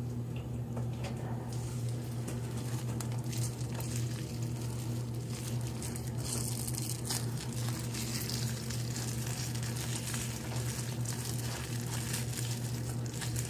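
Slime being squeezed and stretched by hand, giving off a fine crackling, thicker in the second half, over a low steady hum.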